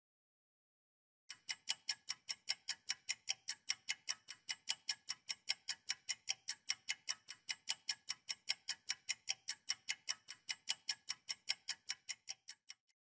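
Clock-ticking sound effect, about four sharp ticks a second, marking a quiz countdown timer. It starts about a second in and stops just before the end, as the time runs out.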